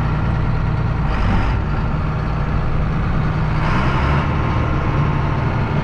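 Large farm tractor's diesel engine running steadily, heard from inside the cab, with a brief hiss about a second in and again around four seconds.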